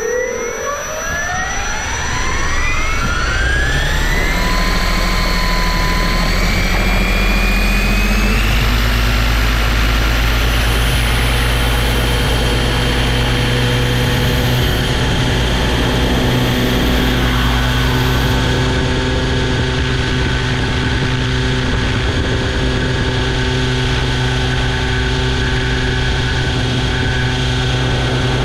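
Align T-Rex 700E electric RC helicopter spooling up, heard from a camera mounted on its side: the motor and drivetrain whine rises in pitch over the first eight seconds or so, then holds steady at flying speed.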